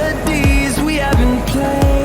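Background electronic music with a steady beat and deep bass notes that slide downward in pitch.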